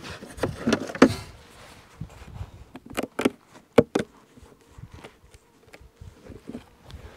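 Gloved hands working through loose straw on top of a wooden beehive box: irregular short crackles and knocks, a few of them sharp.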